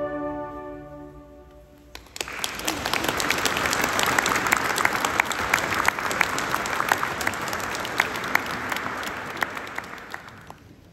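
The last held chord of a piece fades away, then the audience applauds steadily for about eight seconds, tapering off near the end.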